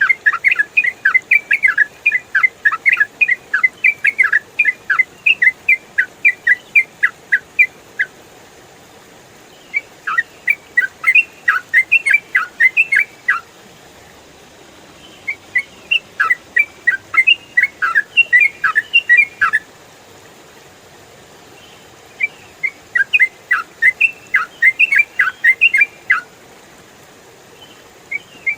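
Yellow-vented bulbul (trucukan) singing its fast, rambling 'ropel' song: quick runs of bright, clear notes in bouts of several seconds, separated by short pauses.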